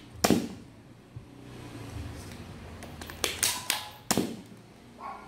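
Foam dart blaster firing: one sharp pop just after the start, then a quick run of about four pops some three seconds in.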